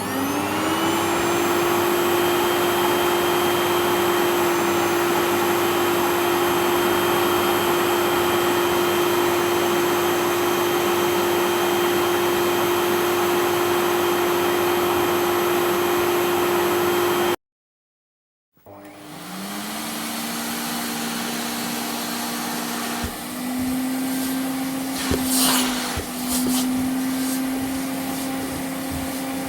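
Electric vacuum cleaner motor spinning up, its whine rising in pitch, then running steadily. It cuts off abruptly after about 17 seconds. After a second of silence a second vacuum cleaner spins up and runs, with a few clatters and rattles partway through.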